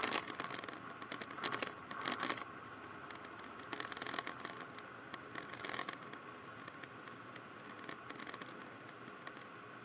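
Faint steady cockpit hiss with a thin steady tone in a Cessna 152 in flight, with the engine kept low, and a few short crackles and scratches in the first six seconds.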